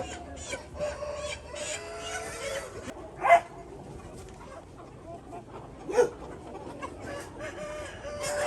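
A flock of chickens clucking and calling over one another, with two louder, sharper calls, one about a third of the way through and one about two-thirds through.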